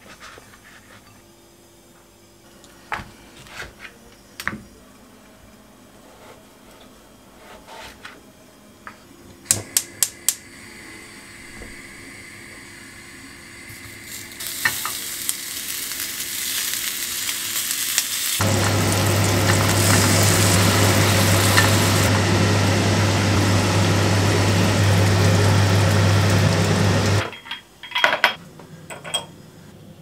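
Slices of sucuk sizzling as they fry in a small stainless-steel pan, the sizzle building from about halfway through and loudest for several seconds near the end over a steady low hum, then cutting off suddenly. Earlier come a few light taps and a quick run of sharp clicks.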